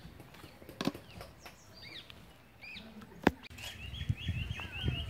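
Birds chirping, then one bird repeating a short high chirp about four times a second from about three and a half seconds in. Two sharp knocks cut in, the louder one just past three seconds, and a few soft low thumps come near the end.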